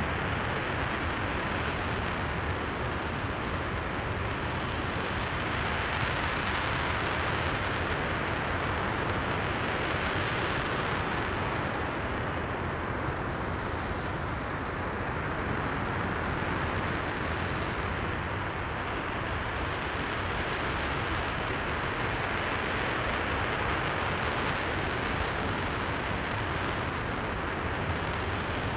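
RS-25 liquid-hydrogen/liquid-oxygen rocket engine firing steadily in a static hot-fire test: a dense, even rushing noise with gentle swells in level, and no breaks.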